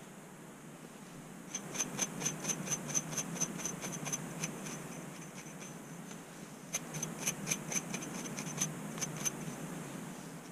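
Quick scraping strokes through thick curly hair and across the scalp, working dandruff flakes loose. They come in two runs of about four strokes a second, the first beginning about a second and a half in and the second from past the middle until near the end.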